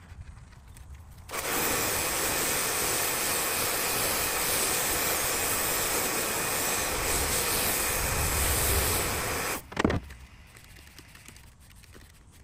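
Kärcher mini electric pressure washer spraying a jet of water onto an aluminium boat hull: a loud, steady hiss that starts suddenly about a second in and cuts off after about eight seconds, with a brief knock just after it stops.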